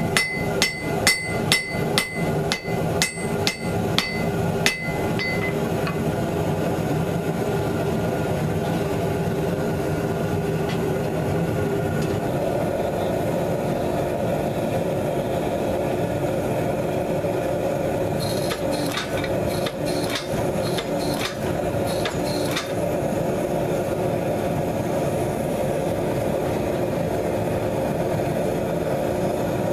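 Hammer blows on a hot damascus billet on the anvil, about two a second with a bright anvil ring, stopping about five seconds in. Then a steady motor hum of the forging press's hydraulic power unit, with a short run of sharp metallic ticks about two-thirds of the way through.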